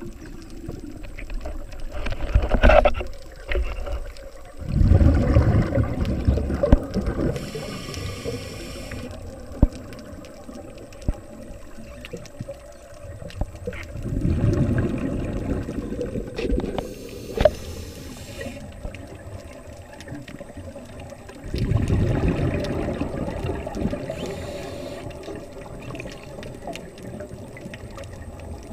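Underwater sound of a diver's exhaled air bubbles gurgling and rushing past the camera in bursts a few seconds long, returning every several seconds. Between the bursts a fainter hiss comes a few times.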